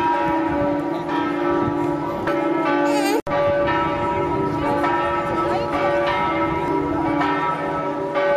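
The bells of St Mark's Campanile ringing together, several pitches overlapping and struck over and over, with a split-second break about three seconds in.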